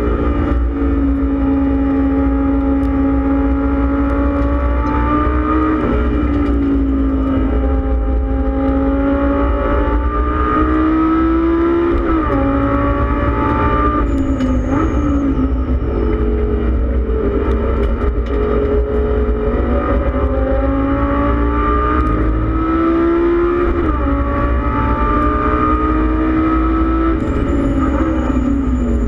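Lamborghini Gallardo Super Trofeo race car's V10 engine, heard from inside the cockpit while racing at speed. Its pitch climbs and then drops sharply at each gear change, several times over.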